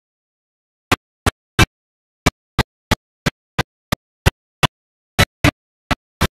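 A rapid, slightly uneven series of sharp clicks, about three a second, with dead silence between them, like a sound track broken up by a digital glitch.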